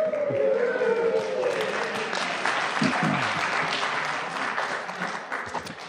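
An audience applauding. The clapping thins out near the end.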